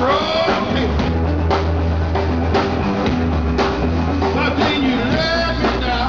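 Three-piece rock band playing live, the drum kit driving a steady beat under a low, sustained bass line. About five seconds in, bending pitched lines, from a guitar or a voice, rise above the band.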